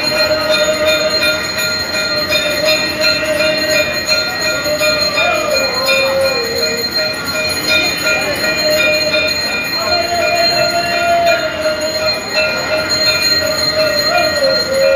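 Temple bells ringing continuously during aarti, with a loud, steady ringing tone held throughout that sags in pitch twice, about a third of the way in and near the end.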